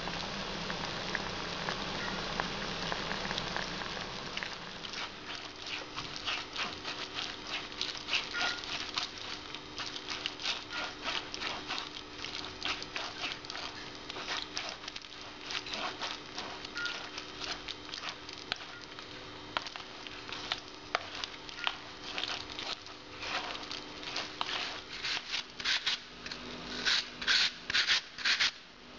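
Stewed plums bubbling at a simmer in an enamel pot for the first few seconds. Then a wooden spoon presses and scrapes the cooked plums through a plastic sieve, a long run of quick scrapes and taps that gets louder near the end.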